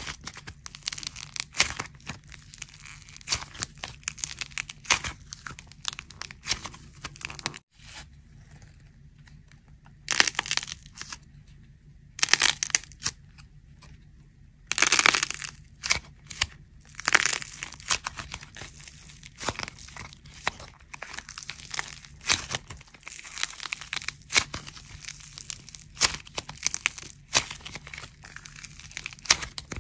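Plaster clay crackling and crumbling as hands squeeze and break it, with the aluminium foil inside it crinkling: a dense run of sharp crackles. The sound drops away for about two seconds roughly a quarter of the way in, then comes back in louder bursts.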